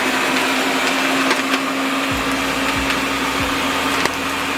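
Ninja countertop blender running steadily, puréeing a chili pepper sauce with onion, garlic and cooking water in its jar.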